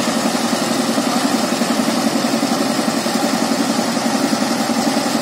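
Power tiller's single-cylinder diesel engine idling with a steady, even chug.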